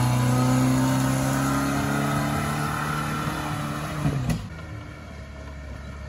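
Lada Niva's engine running hard under load at a steady pitch. About four seconds in the pitch falls away and the sound drops to a quieter, lower engine hum.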